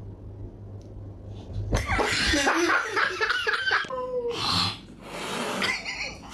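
A person laughing in loud, breathy bursts starting a couple of seconds in, over a low steady hum at the start.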